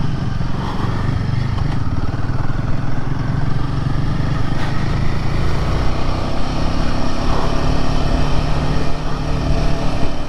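Royal Enfield Himalayan 450's single-cylinder engine running steadily as the motorcycle rides along, with wind and road noise; a steadier, higher engine note comes in about six seconds in.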